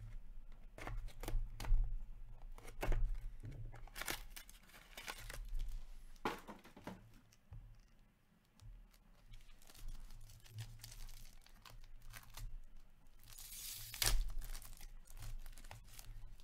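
Plastic wrapping on hockey trading-card boxes and packs being torn open and crinkled by hand: a string of short rips, the loudest near the end as a pack is ripped open.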